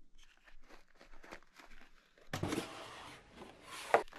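Faint light clicks and taps of small parts handled in a plastic toolbox, then about two seconds of plastic bags rustling and crinkling as they are handled in a cardboard box, with a sharp crackle near the end.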